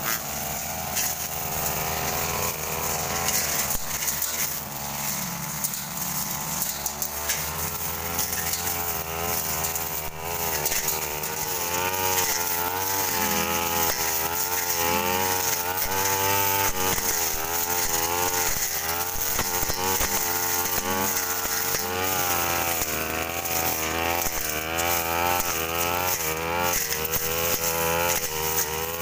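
Backpack two-stroke brush cutter running while cutting grass and ferns, its engine pitch rising and falling again and again as it is throttled up and eased off. A steadier engine hum runs underneath.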